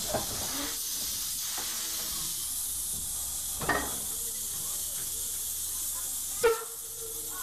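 Steady hiss of steam in the cab of an 1899 Porter 0-4-0 steam locomotive, with a few sharp knocks from the cab fittings, the loudest near the end.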